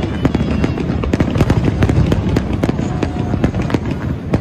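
Aerial fireworks shells bursting in a rapid barrage, with many sharp bangs and crackles a second over a continuous low rumble.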